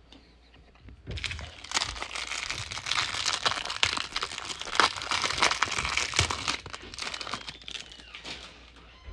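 Plastic wrapper of a trading-card pack crinkling and tearing as it is ripped open by hand. The crackling starts about a second in and dies down near the end.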